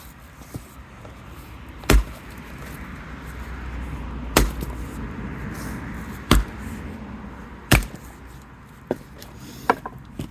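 Hytest Tasmanian axe chopping into knotty hardwood: four heavy blows about two seconds apart, then a few lighter knocks near the end.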